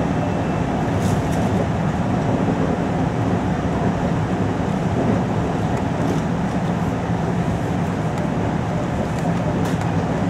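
Running noise inside the motor car of a 521 series electric multiple unit at speed: a steady rumble of wheels on rail, with a couple of faint clicks about a second in and near the end.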